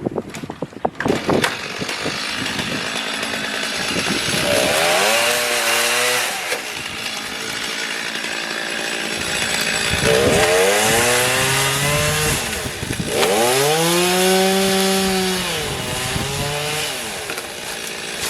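Two-stroke gas chainsaw that starts running about a second in. Its engine speed rises and falls back three times as the throttle is worked.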